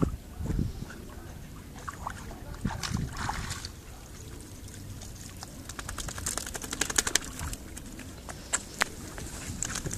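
Sea water splashing and trickling as a wet Brittany spaniel wades out of the sea onto rocks, with wind rumbling on the microphone. A quick run of small clicks and splashes comes about six seconds in.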